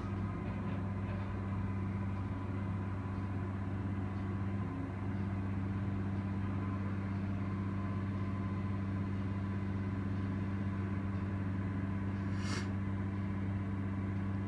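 Caterpillar 345 excavator's diesel engine running with a steady, even drone while the operator works a pipe grapple. A single short sharp click sounds near the end.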